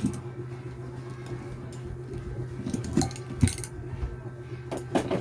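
Small hand tools and phone parts clicking and clinking against a work surface, a few separate light knocks over a steady low hum.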